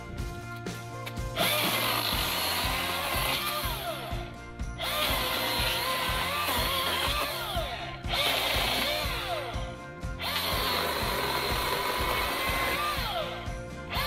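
Milwaukee M18 Fuel battery chainsaw cutting wood in four long bursts with brief pauses between, its motor whine dipping and recovering in pitch as the chain bogs under load, over background music.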